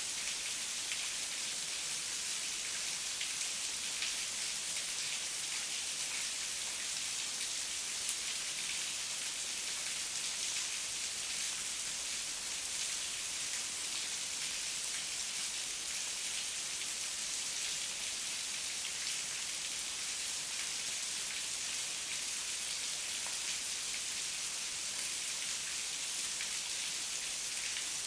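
Heavy rain falling steadily, a dense hiss of drops with fine individual drop ticks and no thunder.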